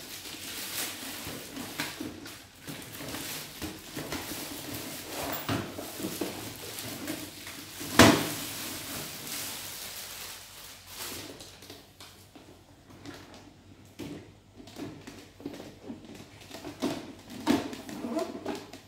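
Plastic drawer cabinet being handled: drawers sliding in and out with plastic scrapes, rustles and clicks, and one sharp knock about eight seconds in.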